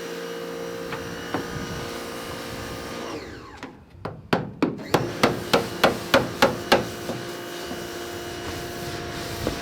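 Hammer blows: about a dozen sharp strikes in quick succession, roughly three to four a second, midway through, over a steady background hum.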